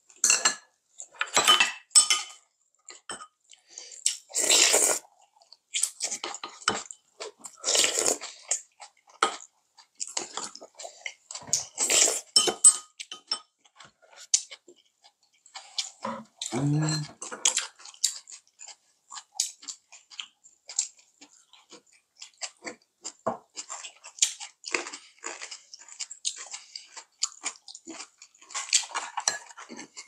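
Table eating sounds: metal chopsticks clicking and scraping against ceramic bowls and plates in irregular short clatters, with chewing of kimchi and crunchy side dishes. A brief low hum from one of the eaters about halfway through.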